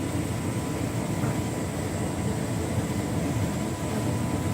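Hotpoint Ultima S-line tumble dryer running on its Heat and Enjoy warming cycle: a steady low rumble of the turning drum and blower fan pushing out warm air.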